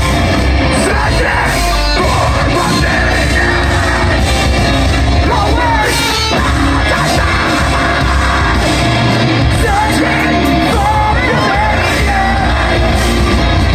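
Live metalcore band playing loud and steady, with distorted electric guitar, drums and yelled vocals from two singers.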